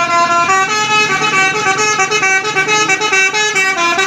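Telolet multi-tone bus horn (basuri) playing a quick melody of short held notes that step up and down several times a second.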